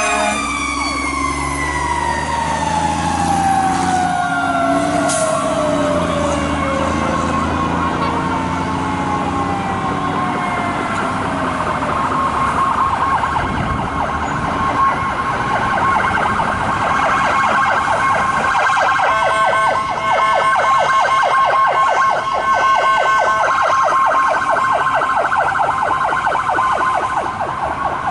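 A fire engine's siren winding down in one long, slow fall of pitch as the truck passes, over its diesel engine. Then a second emergency vehicle's electronic siren cycles rapidly around one pitch, switching briefly to a different tone pattern about two-thirds of the way through.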